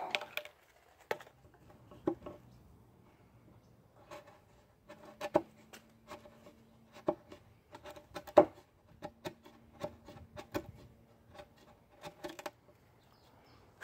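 Bench chisel worked by hand into a mortise in wood, chopping and levering out waste: a series of irregular sharp clicks and knocks as the fibres part.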